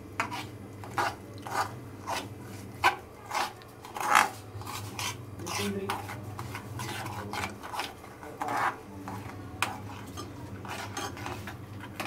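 Metal spoon scraping and clinking against a metal pan while ground pepper in ghee is stirred and roasted, in irregular strokes about one or two a second that thin out after the middle, over a steady low hum.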